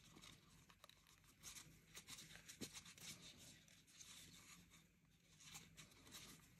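Near silence with faint, scattered rustles and soft scratches of T-shirt yarn being handled and pulled tight with a crochet hook.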